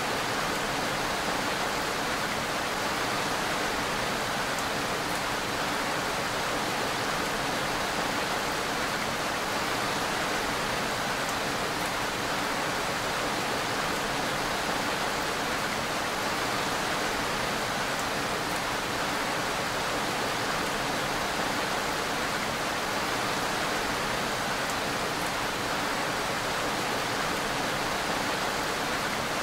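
Steady rain falling: an even hiss of water that holds without change.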